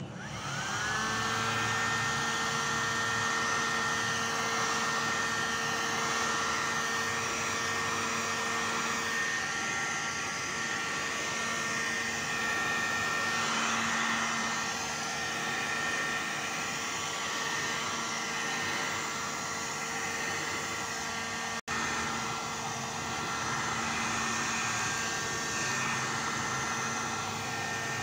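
A Nankai 1500-watt hot air gun's fan motor spins up and then runs steadily, a rushing blast of air with a constant whine, as it blows hot air onto a plastic bag. The sound drops out for a split second about three-quarters of the way through.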